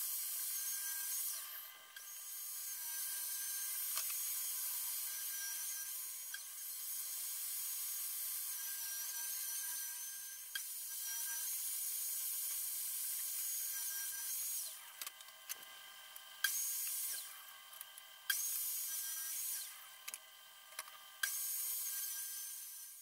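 Table saw running and cutting plywood: a steady high whine whose pitch wavers slightly as the blade is loaded. The sound drops away abruptly and comes back several times in the second half.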